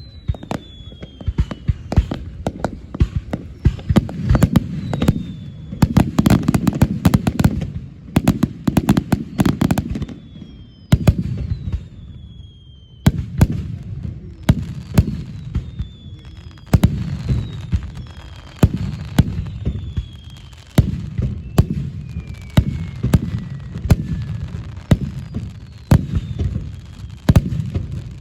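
Fireworks display: rapid volleys of sharp bangs and crackles over deep booms of bursting shells, with several whistles that fall in pitch. The barrage thins out briefly about halfway through, then picks up again.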